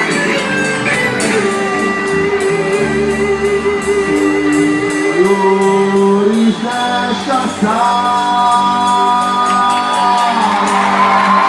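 Live forró band playing: a singer holds long notes with vibrato over guitar and a steady percussion beat.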